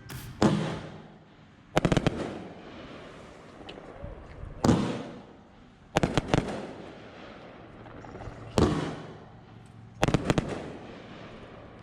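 Raccoon consumer fireworks going off in a string of reports, one about every two seconds. Some are single bangs with a long fading echo, others are quick rattling clusters of cracks.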